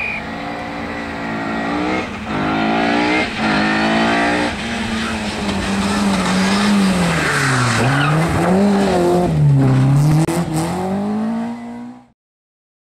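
Opel rally car's engine accelerating hard, its pitch climbing and dropping back at each of three quick upshifts. Then the revs dip and rise again several times as the car brakes and powers through the bends. The sound cuts off suddenly near the end.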